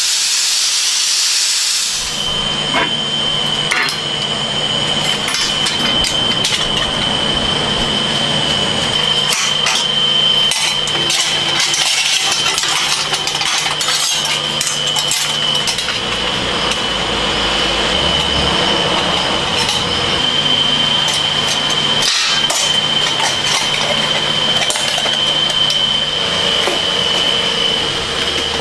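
Workshop machinery running with a steady high whine and a low hum, under frequent metal clinks and knocks.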